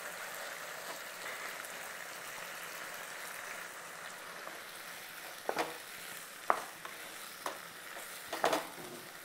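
Chicken pieces sizzling in oil in a kadai as ground masala paste is added and stirred in with a wooden spatula. About four sharp knocks of the spatula, roughly a second apart, come in the second half.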